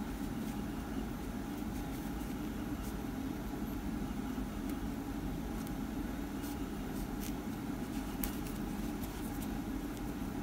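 Steady low background hum, with a few faint small ticks from a needle and yarn being handled.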